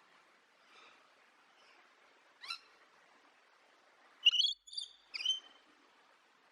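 A bird calling in short, sharp calls: a single call about two and a half seconds in, then louder calls in quick succession near the end, over a faint hiss.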